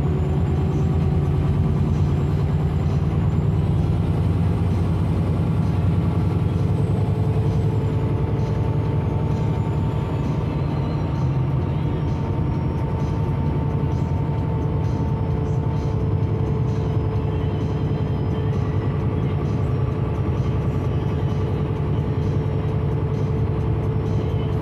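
Karosa C955 Récréo bus under way, heard from inside the passenger cabin: a steady diesel engine and road drone with a whine that rises slightly in pitch over the first few seconds, then holds steady.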